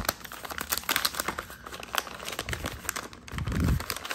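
Brown kraft paper envelope crinkling and rustling in quick crackles as hands open it and slide out the paper inside, with a brief low rumble about three and a half seconds in.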